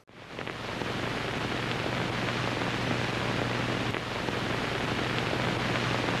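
Steady hiss of static or white noise with a low, even electrical hum underneath, coming in just after the start.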